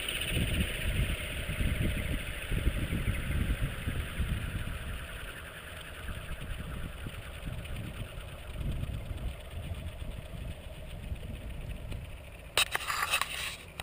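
Align T-Rex 600 RC helicopter's main rotor winding down after landing: a low, fluttering rumble that slowly fades. About a second before the end there is a short burst of rustling handling noise.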